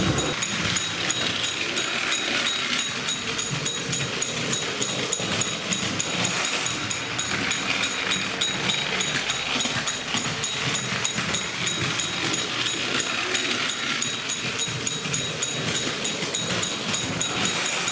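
Battery-powered Plarail toy train running on plastic track: a small electric motor whirring steadily, with a constant fine clicking and rattling of the wheels on the track.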